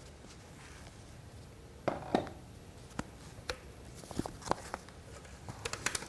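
Scattered light clicks and small knocks of handling, with the grinder switched off: an angle grinder fitted with a dust shroud being set down on a wooden floor, and a dust mask being adjusted. About a dozen separate taps, a few around two seconds in and a quick cluster near the end.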